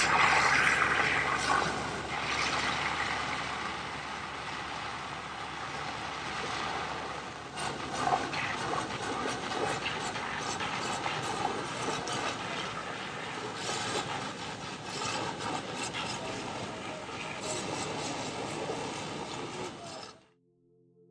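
A steady mechanical roar with rattling and clattering, like heavy machinery or vehicles running outdoors, loudest in the first couple of seconds. It cuts off suddenly near the end.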